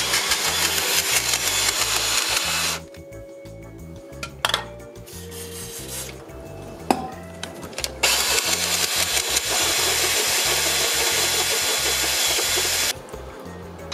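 Cordless drill with a stepped drill bit running under load as it drills into a part on the axle, in two long runs of a few seconds each with a pause and a few knocks between them.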